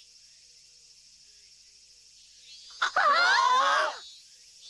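A faint, steady high insect buzz, then about three seconds in a loud outburst of several voices shrieking at once for about a second.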